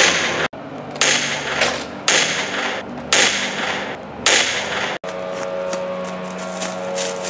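Sharp hits about once a second, each fading quickly, over a steady bed of held tones. About five seconds in, the sound cuts and the hits stop, leaving a steady held tone.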